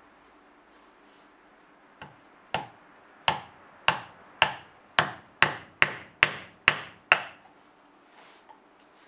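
Hammer striking a chisel being driven into a wooden plane block, chopping out the blade opening. About eleven sharp blows start about two seconds in and come faster toward the end, then stop, leaving a few faint taps.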